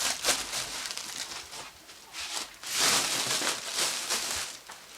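Rustling and crinkling handling noise in irregular bursts, the longest about three seconds in, as sweaters are handled and moved about.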